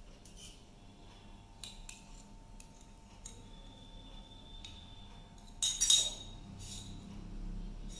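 Scattered light clinks of kitchen utensils against a glass mixing bowl while brown sugar is being added, with a louder clatter about six seconds in.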